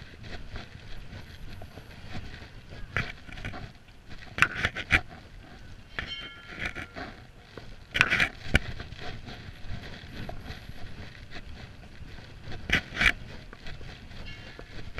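Outdoor street ambience: a steady low rumble with irregular sharp knocks and scuffs, several coming in close pairs. A brief pitched tone sounds about six seconds in.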